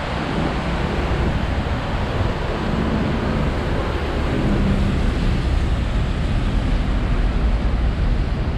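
Steady noise of busy city traffic on wet roads, mixed with wind rumbling on the microphone.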